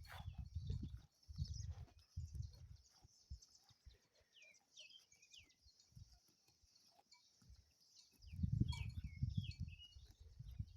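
Small birds chirping in short, downward-sliding calls over a steady high hiss. Close, low rustling thumps come near the start and again from about eight seconds in, from sheep grazing near the microphone.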